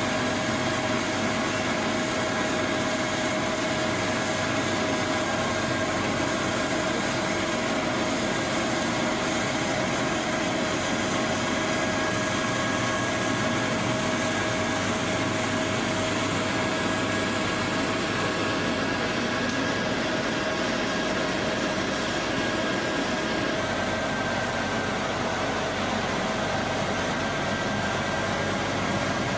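Heavy machine engine running steadily, with a constant whine over the engine noise.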